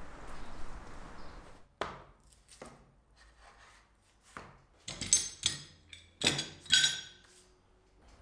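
A few separate wooden knocks as hardwood strips are laid on a workbench, then a quick cluster of loud metallic clanks with a short ring, made by steel C-clamps being set down on the bench.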